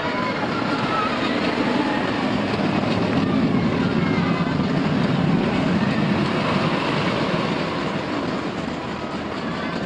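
A Togo stand-up roller coaster train running along its steel track with a steady rumble that swells and then eases off near the end.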